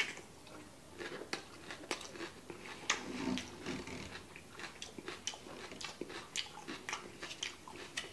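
A man chewing a mouthful of shredded cabbage with sauce, close to the microphone: irregular crunches and mouth clicks, several a second.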